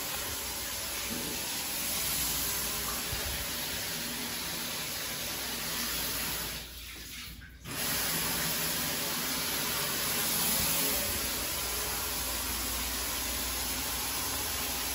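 Shower running, water spraying steadily onto tiled walls, with a brief break about seven seconds in.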